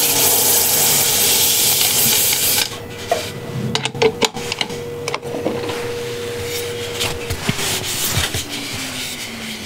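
Sandpaper hissing against a cherry bowl spinning on a wood lathe for nearly three seconds, followed by a few light clicks and taps over the lathe's steady hum. About seven seconds in, the hum starts falling steadily in pitch as the lathe slows down.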